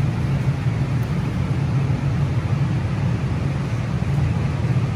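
Steady low rumble of background noise, even throughout with no distinct events.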